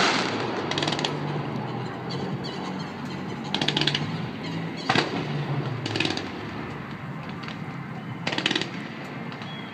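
Fireworks: the tail of a loud burst fades away, then short bursts of rapid crackling go off every second or two, with one sharp bang about five seconds in.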